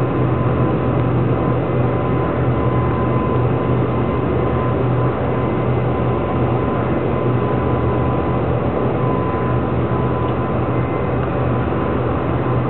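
A boat's engine running steadily, a constant low drone with a faint steady whine above it.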